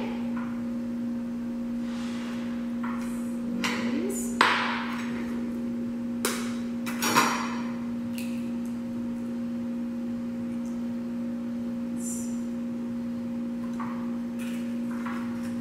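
Eggs being cracked and separated by hand: a string of short, sharp cracks and taps of eggshell, the loudest about four and seven seconds in. A steady low hum runs underneath.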